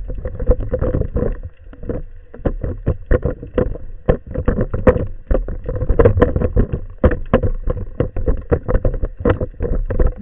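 Sea water sloshing and splashing around a camera in an underwater housing just below the surface, with many quick knocks and clicks over a low rumble and a faint steady hum.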